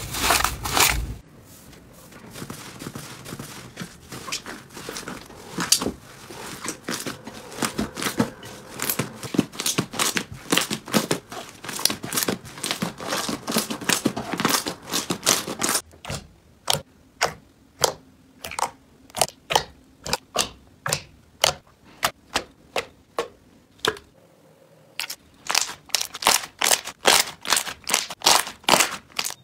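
Slime squeezed and kneaded by hand, crackling and popping as air pockets burst. It starts as a dense run of small crackles, then about halfway through becomes a slower series of separate pops about two a second, and after a short pause the pops come quicker near the end.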